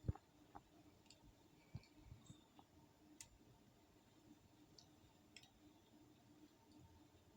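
Near silence with a faint steady hum and a few scattered faint clicks; the sharpest click comes right at the start.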